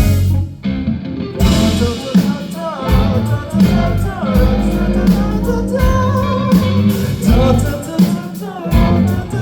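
A band playing live: electric guitar over bass and drums, with singing.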